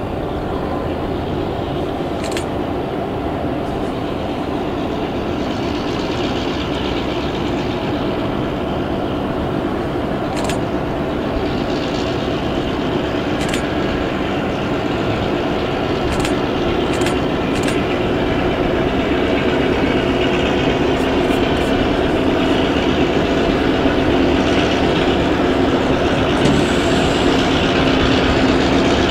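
Diesel locomotive engine running in the distance, a steady low hum with a few held tones that slowly grows louder as the train approaches.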